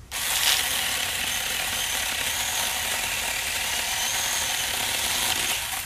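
EnBrilite cordless battery-powered mini chainsaw running at full speed, its chain cutting into brush stems. It starts abruptly, runs steadily with a high whine, and stops near the end.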